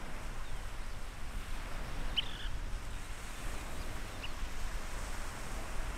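Steady hiss of surf and wind on a sandy beach, with two short high bird chirps, one about two seconds in and a shorter one about four seconds in.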